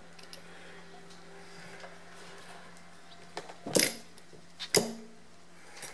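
Metal brake master cylinder parts knocking and clinking as they are assembled by hand: a few light clicks, then two sharp metallic knocks about a second apart, over a faint steady hum.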